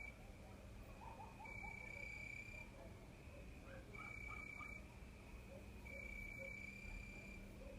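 Cricket singing on a summer evening: a high, even trill sounding in bursts of just under a second, repeated about every two seconds. A few faint short chirps sit lower down about a second in.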